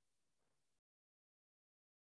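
Near silence: a faint trace of noise that drops to complete digital silence under a second in.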